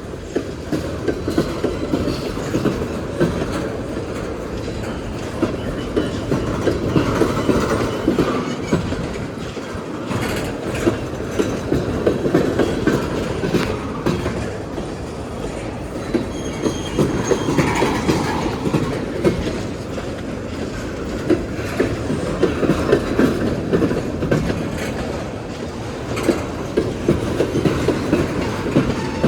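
Freight train's tank cars rolling past: a steady rumble of steel wheels on rail, with clusters of clacks every few seconds as each car's wheels cross the rail joints.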